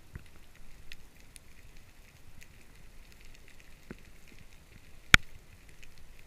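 Underwater ambience: a faint steady crackle of small scattered clicks, with one sharp, loud click about five seconds in.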